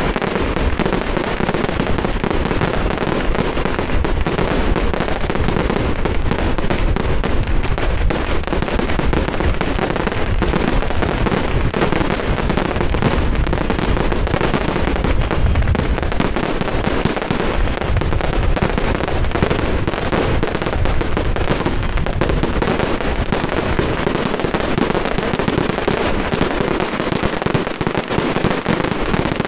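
A dense, unbroken barrage of firecrackers: rapid crackling bangs packed so closely together that they merge into one continuous, even racket with no pause.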